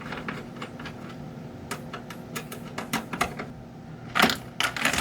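Plastic housing of a fake-aquarium lamp being handled and taken apart: a string of light clicks and taps over a faint steady hum, with louder knocks about four seconds in.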